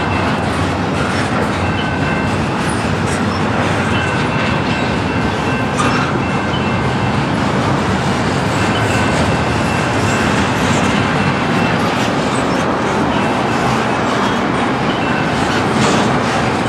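Double-stack intermodal well cars rolling past at track speed: a steady rumble of steel wheels on rail, with scattered clicks from the wheels and a faint high squeal that comes and goes.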